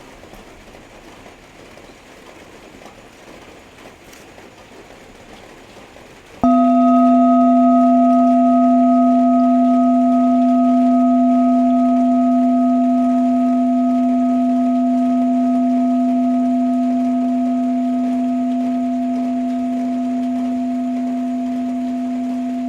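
Steady rain hiss, then about six and a half seconds in a Tibetan singing bowl is struck once. It rings on with a deep tone and a few higher overtones, slowly fading.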